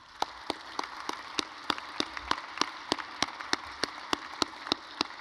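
Audience applauding, with one person's claps close to the microphone standing out sharply and evenly, about three a second.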